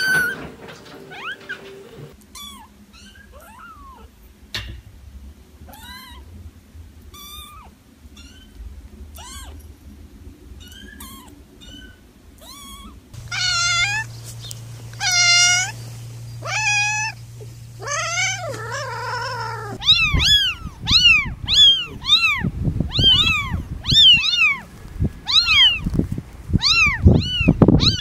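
Cats and kittens meowing, one clip after another. First come faint, short, high-pitched kitten mews, then louder, longer meows in the middle. From about two-thirds of the way in there is a rapid run of kitten mews, about two a second, over a low rumbling noise.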